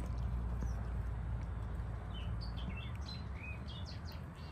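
Small birds chirping: a quick run of short, high chirps, thickest in the second half, over a steady low rumble.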